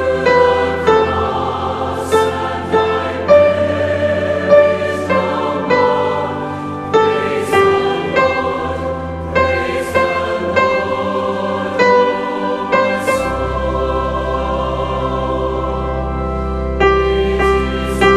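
Choir singing a hymn with organ accompaniment. A deep organ pedal note is held underneath and moves to a new, stronger low note about two-thirds of the way through.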